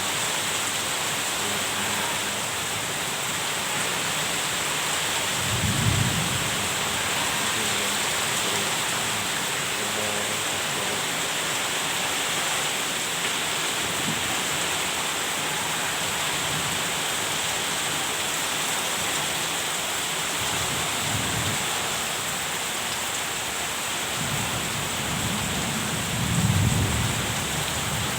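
Heavy rain pouring steadily in a thunderstorm. Deep rumbles of thunder come about six seconds in, again around twenty-one seconds, and a longer, louder roll near the end.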